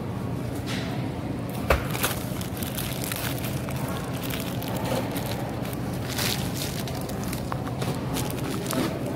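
Supermarket background noise: a steady low hum with rustling and knocks from a hand-held phone, a sharp knock about two seconds in.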